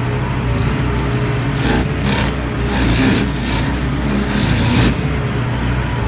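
Ride-on lawn mower engine running steadily, with several short bursts of rushing noise between about two and five seconds in, typical of the deck cutting through thicker grass.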